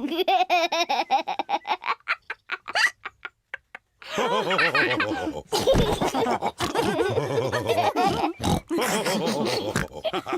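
Cartoon pig characters laughing and snorting. A single voice comes first, then a short stretch of brief sharp clicks with gaps, then from about four seconds in several voices laugh and snort together loudly.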